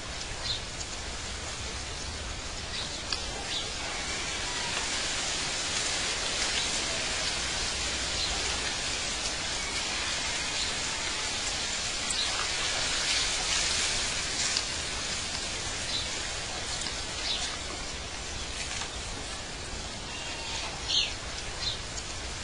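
Outdoor ambience: a steady hiss with a few short, high bird chirps now and then.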